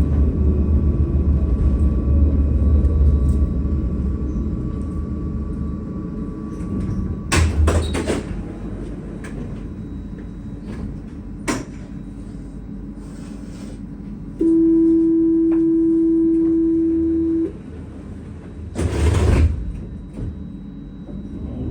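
Tram coming to a stop, its low rumble and motor whine falling away over the first few seconds, then clunks of the doors a little after. About halfway through, a steady warning tone sounds for about three seconds, followed by a short hiss and clunk as the doors close.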